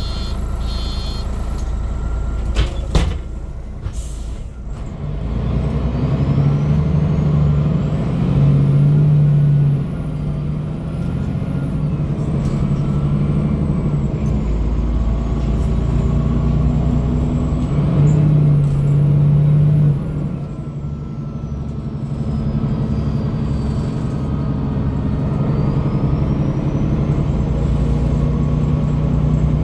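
MAN NG313 articulated bus heard from inside the cabin, its six-cylinder MAN D2866 diesel and ZF 5HP-592 automatic gearbox. A short hiss of air from the brakes comes near the start, then the engine pulls hard with its drone building and dropping away sharply twice, about ten and twenty seconds in, as the automatic shifts up. It then runs on steadily, with a thin high whine rising and falling with speed.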